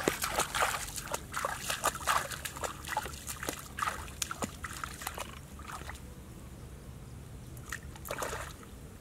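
Bare feet splashing and sloshing through shallow muddy floodwater in quick steps for about the first five seconds, then quieter, with another short burst of splashing about eight seconds in.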